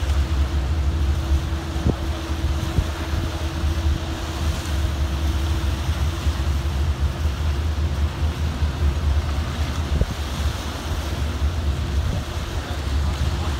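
Wind buffeting the microphone over washing harbour water, with a faint steady hum that fades away about halfway through.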